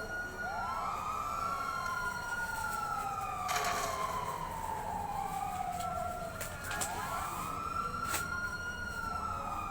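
A wailing siren whose pitch rises quickly and then falls slowly, repeating every few seconds with the cycles overlapping. A couple of sharp clicks are heard, one in the middle and one near the end.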